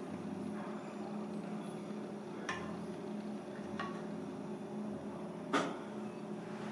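A metal ladle clinking against a ceramic plate three times while sauce is spooned over a dish, the loudest clink near the end, over a steady low kitchen hum.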